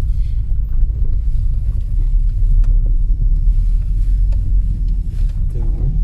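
Steady low rumble of a car driving slowly, heard from inside the cabin, with some wind on the microphone.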